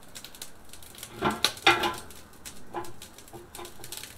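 Metal clanks and knocks as a chicken is hung on the rebar inside a Pit Barrel Cooker, loudest in a quick cluster about a second and a half in, with a few lighter knocks after.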